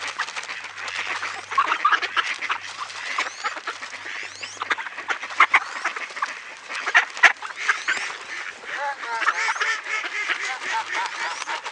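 A flock of ducks being fed grain, calling over one another in a busy, overlapping clamour of quacks and calls, with many short sharp clicks mixed in.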